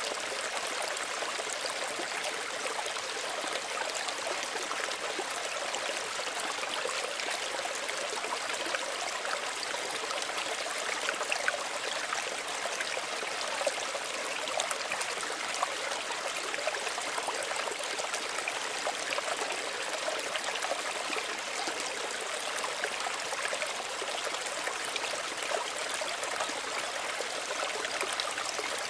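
A small stream running gently, a steady babble and trickle of water over stones with many small splashes and gurgles.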